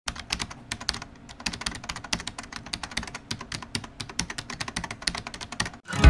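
Rapid, irregular clicking like keys being typed on a computer keyboard, several clicks a second, stopping suddenly just before the end.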